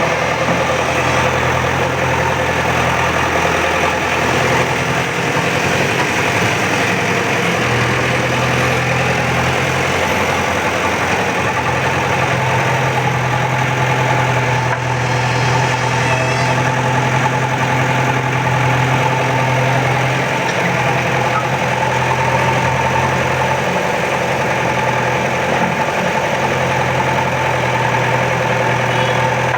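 An earthmoving machine's diesel engine runs steadily while digging soil. Its note rises and falls a little as the load changes.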